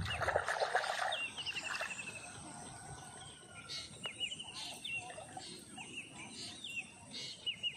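Water splashing as a fishing net is worked and lifted out of shallow floodwater, loudest in the first second or so. A bird calls over it again and again, each call a quick run of high notes, every second or two.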